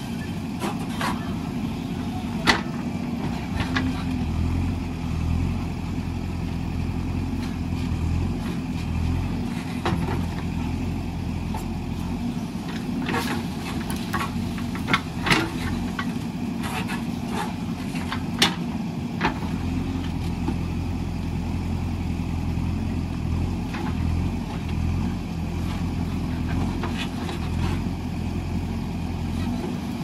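JCB 3DX backhoe loader's diesel engine running under digging load, its note swelling and easing as the backhoe arm works. Short sharp knocks come now and then from the bucket and arm, the loudest about two seconds in and again near the middle.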